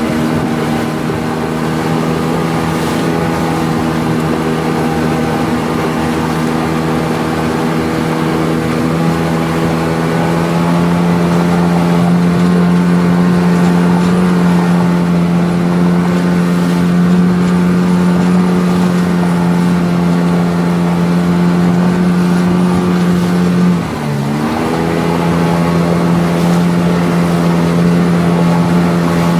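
9.8-horsepower outboard motor on a small sectional boat, running steadily under way. Its pitch steps up a little about ten seconds in, and late on the throttle is briefly eased off and then opened again.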